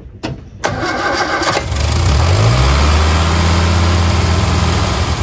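Austin-Healey Sprite's BMC A-series four-cylinder engine cranking briefly on the starter, catching about two seconds in and revving up, then running steadily. It is started with the key from the dashboard.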